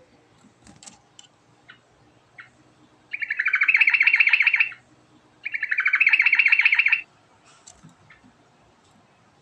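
Sooty-headed bulbul singing: a few faint short chirps, then two loud, fast trills of rapidly repeated notes, each about a second and a half long, with a short gap between them.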